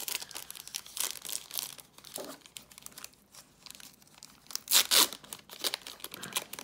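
Foil-lined wrapper of a 1990–91 Pro Set hockey card pack being torn open and crinkled by hand, with the loudest crackling tear about five seconds in.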